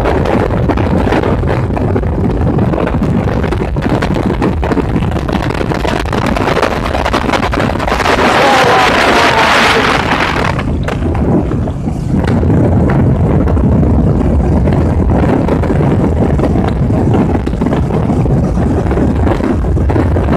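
Motorcycle engine running at road speed with wind buffeting the microphone, a steady dense rumble. A louder hissing rush lasts about two seconds near the middle, and the level dips briefly a little later.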